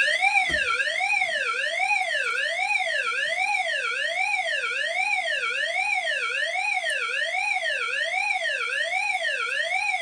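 Agent release evacuation signal from a Wheelock E70 speaker strobe, fed by an MP3 board: a loud electronic tone sweeping smoothly up and down about once every 0.7 seconds. It sounds because the agent release pull station has been activated.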